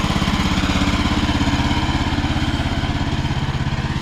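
The Woodland Mills HM126 sawmill's 14 HP gasoline engine idling steadily with an even, rapid chugging.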